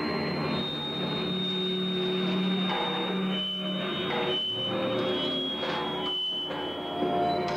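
Free-improvised ensemble music: a dense mass of held tones, with thin high whistling tones above a low steady drone. The texture thins out for a moment three times.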